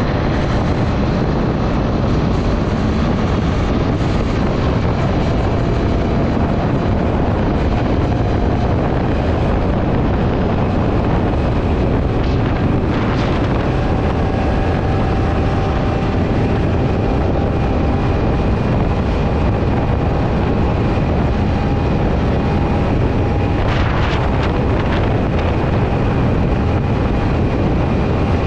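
Steady rush of wind on the microphone over the Suzuki Access 125 scooter's single-cylinder engine held at full throttle, cruising near its top speed.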